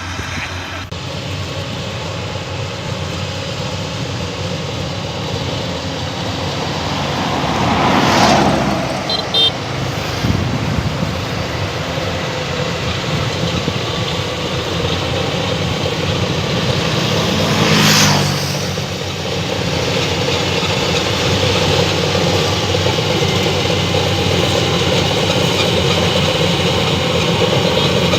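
Rice combine harvester running steadily under load, with two brief louder swells. A few short high beeps sound about a third of the way in.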